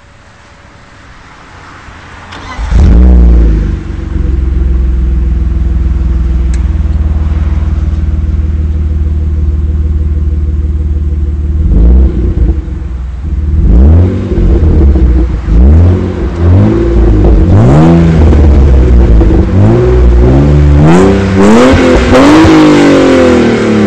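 BMW E36 320i's 2.0-litre straight-six through an Eisenmann sport exhaust, started about two and a half seconds in with a brief flare of revs, then idling steadily. From about twelve seconds it is blipped over and over, the revs rising and falling quickly in short bursts.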